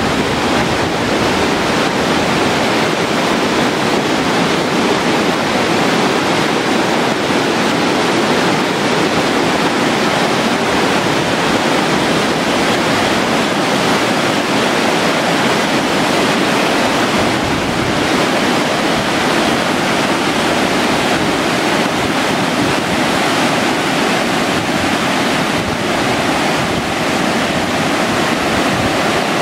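Waterfall rapids pouring over broad rock slabs: a loud, steady rush of white water with no let-up.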